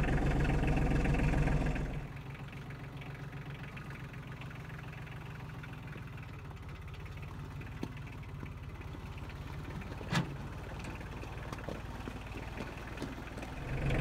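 Compact tractor engine running as it carries a log in its front-loader grapple: louder for the first two seconds, then a steady lower drone. A single sharp knock about ten seconds in.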